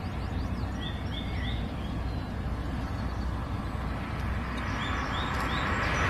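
Small birds chirping in short runs of three quick rising notes, twice, over a steady low rumble.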